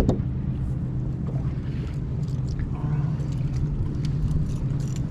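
Steady low hum of a boat motor under wind and water noise, with a sharp knock right at the start.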